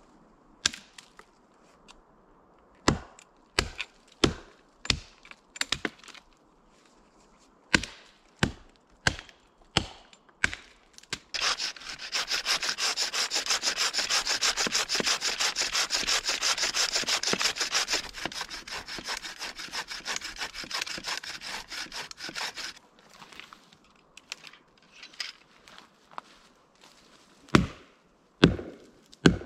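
Wood being worked by hand for a shelter: a run of sharp wooden knocks, then about eleven seconds of quick, even back-and-forth sawing through wood, then a few more knocks near the end.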